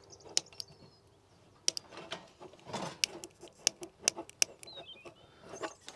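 Piezo igniter on a RidgeMonkey Grilla gas barbecue clicking repeatedly at irregular intervals without lighting the burner, as the gas canister is not yet screwed on fully. A bird chirps faintly in the background.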